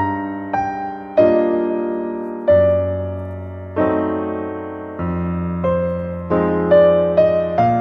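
Background piano music: slow notes and chords struck about once a second, each ringing and fading before the next.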